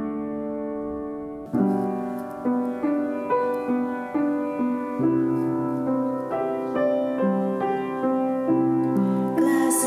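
Piano playing a slow, gentle instrumental passage: a held chord fades out, then single notes and chords are struck every half second to second, each ringing on and dying away.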